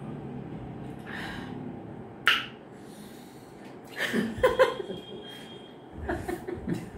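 Sharp hissing breaths through the mouth from the chili heat of very spicy fuchka (pani puri), the loudest a single hiss about two seconds in, with short chuckles and voice sounds around four seconds and again near the end.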